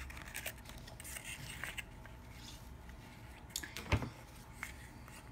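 Cardstock being handled: light paper rustles and small clicks, with a single thump about four seconds in.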